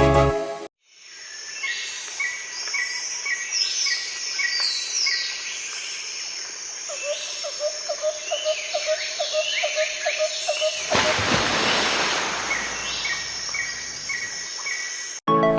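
A chorus of many birds calling and chirping, with one bird repeating a short call several times a second and another giving a lower call about three times a second midway through. A short rush of noise comes about eleven seconds in. Music plays for a moment at the start and again near the end.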